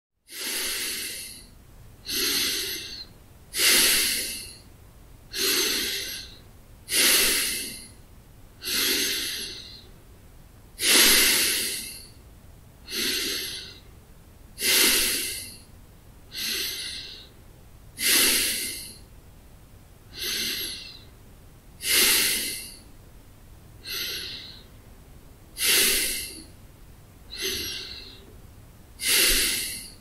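A man breathing slowly and steadily through his nose while at rest. Each breath is a soft, airy hiss lasting under a second, and they come evenly about every one and a half to two seconds.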